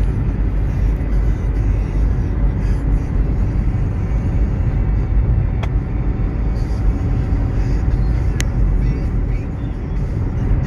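Steady low road and engine rumble of a car being driven, with two brief sharp clicks a few seconds apart.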